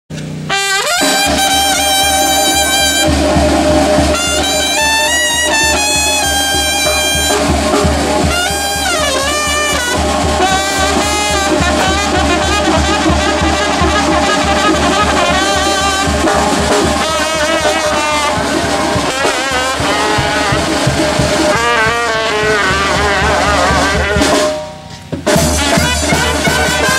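A banda sinaloense brass band playing live: trumpets, clarinets and trombones carry the melody over a sousaphone bass line and a drum beat. The music dips briefly near the end.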